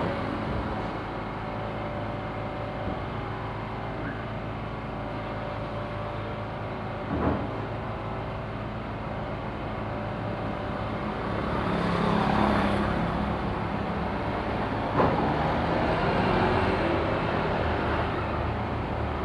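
Motor vehicle traffic: a steady engine hum, with a vehicle passing by about twelve seconds in and a short knock about three seconds later.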